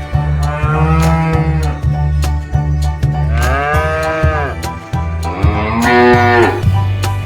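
Cows mooing, three long calls that rise and fall in pitch, over background music with a steady low beat.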